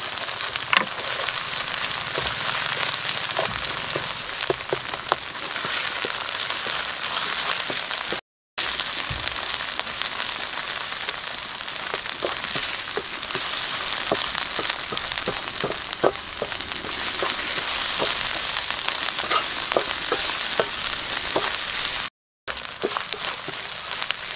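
Chopped spice paste frying and sizzling in a steel wok as a spatula stirs and scrapes it, with scattered short clicks. The sound cuts out briefly twice.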